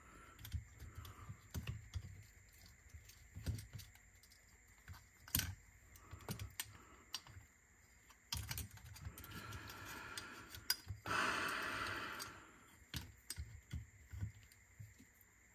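Scattered light clicks and knocks of tools and small parts being handled inside a cassette deck's tape transport during belt work. A rushing hiss of a couple of seconds comes about nine to twelve seconds in.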